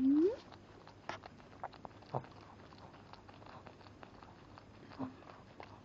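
A Shih Tzu's short whine that rises in pitch right at the start, then soft scattered clicks and rustling from the dogs moving against each other, with a brief low whimper about five seconds in.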